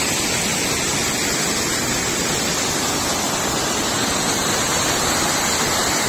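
Fast white water of a small waterfall rushing down over rocks in a steady, even rush.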